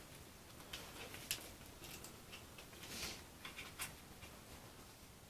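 Faint scattered clicks and light scratchy ticks of small hinge parts and balsa model control surfaces being handled.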